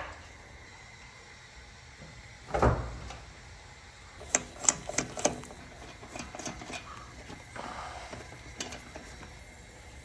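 Hands-on work on the car's front suspension: one heavy thump, then a quick run of about five sharp clicks and a few fainter knocks, as tools and parts are handled around the tie rod ends.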